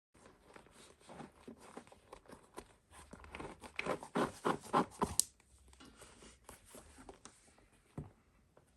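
Leather lace being pulled through the holes of a leather baseball glove: a run of scraping, rustling strokes, strongest and quickest between about three and five seconds in, ending in a sharp snap. Quieter rustling follows, with a single knock near the end.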